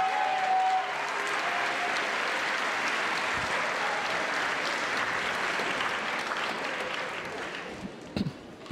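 Theatre audience applauding steadily after a song, its last held note ending about a second in; the applause fades away near the end, with a short thump.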